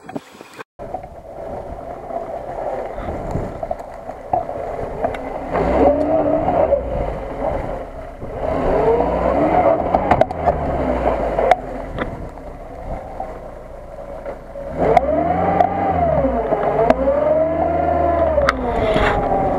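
Lada Niva 4x4 engine revving under load, its pitch rising and falling in several swells after a quieter first few seconds.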